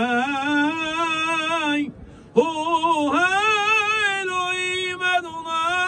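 A male cantor singing a long Mizrahi cantorial line with heavily ornamented, quavering melisma. The voice breaks off briefly about two seconds in and resumes.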